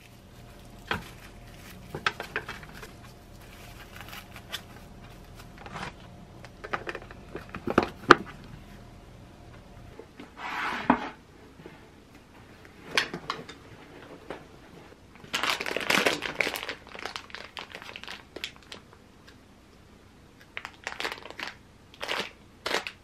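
A clear plastic food container and plastic-wrapped sandwiches being handled and packed: scattered clicks and knocks of plastic with crinkling of wrap. After about ten seconds come louder rustling and crinkling bursts as the lidded container goes into a cloth bag, with a plastic sweets packet crinkling near the end.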